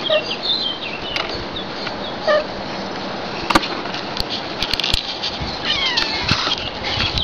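Young kittens mewing: a few short, high-pitched mews near the start and in the middle, then a longer run of gliding mews near the end.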